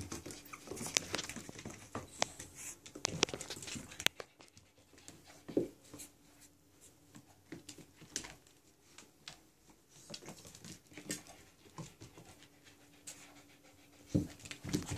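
A Chihuahua puppy and a Lab/pit-mix puppy play-wrestling: irregular scuffles and clicking of claws, with panting and a few short vocal noises, one about five seconds in and a couple near the end.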